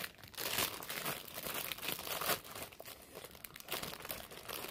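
Thin clear plastic bag crinkling and rustling in irregular bursts as it is handled and pulled open.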